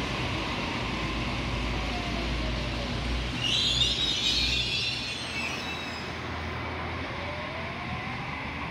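Double-deck electric suburban train running past a platform with a steady rumble. A brief high metallic squeal of the wheels on the rails sounds about three and a half seconds in. A faint whine rises in pitch near the end.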